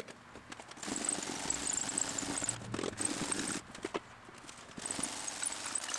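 Petrobond foundry sand pouring into a wooden molding flask over the pattern: a steady hiss of falling grains in two runs of a few seconds each, the first starting about a second in, with a few light clicks between them.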